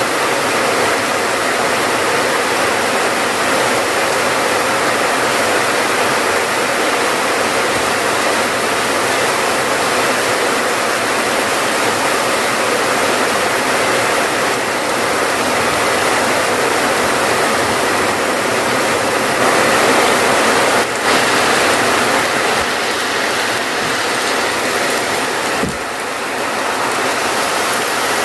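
Steady, heavy rainfall, an even dense hiss that swells briefly about three quarters of the way through.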